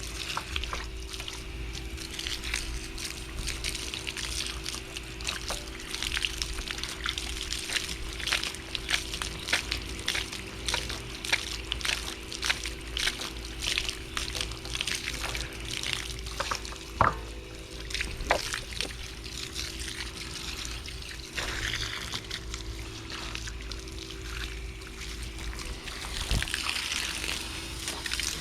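Water spraying and spattering from a Sun Joe electric pressure washer as it washes down a cartridge pool filter housing, in irregular splashes over a steady hum.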